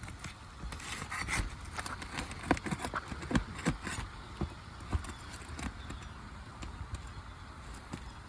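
Roofing nails being pried out from under asphalt shingles: irregular clicks, taps and scrapes of metal on nails and shingles, with a few short squeaks.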